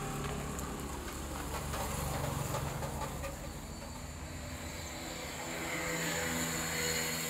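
Steady low engine hum with hiss from a running motor vehicle, growing a little louder near the end.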